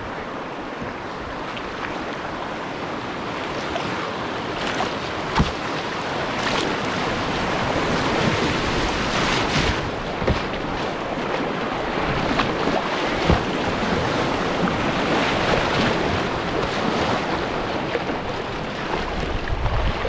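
Canoe running whitewater rapids: river water rushing and splashing around the bow and hull, growing louder through the middle as the waves get bigger, with a few sharp knocks.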